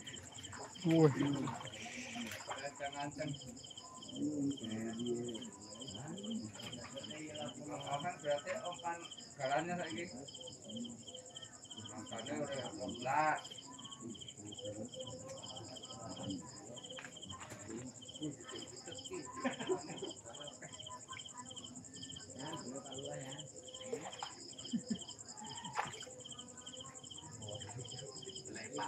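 Chorus of night insects: a steady high-pitched trill with a fast, rhythmic pulsing chirp beneath it. Faint, indistinct voices murmur now and then.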